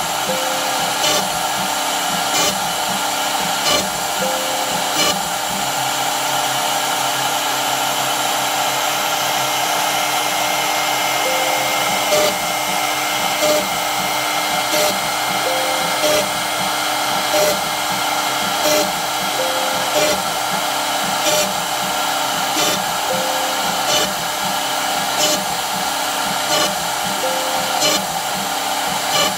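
CNC router spindle running with a steady whine while its bit plunges into pine to bore one small hole after another. Each plunge gives a brief louder cutting burst, about one every second and a half.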